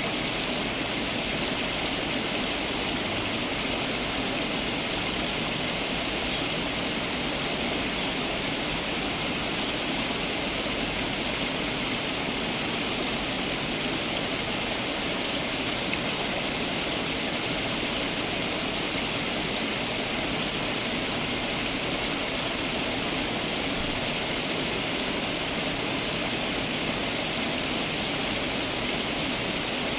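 Water from a garden fountain splashing and falling in a steady, unbroken rush.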